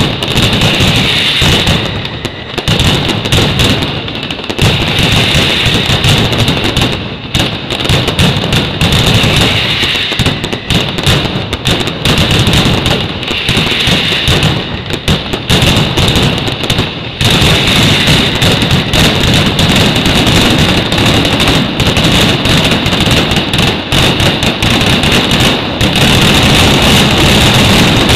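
Mascletà firecrackers going off in a dense, rapid, continuous barrage of loud explosions. The blasts run almost without a break from about halfway through and grow loudest near the end.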